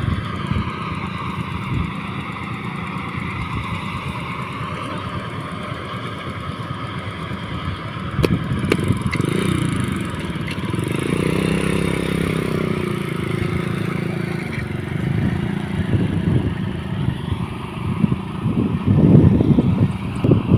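An engine running steadily as the vehicle moves, working harder for a few seconds around the middle, with louder rough bumps near the end.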